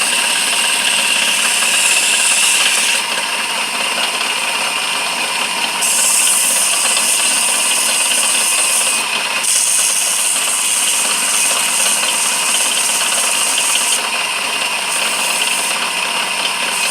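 Lathe running while 40-grit sandpaper is held against a spinning hardwood tool handle: a steady abrasive hiss whose high part shifts every few seconds as the pressure changes.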